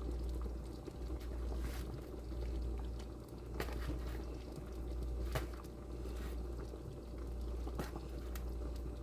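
Pot of chicken and dumplings bubbling at a boil, with a few sharp clicks scattered through it, over a steady low hum.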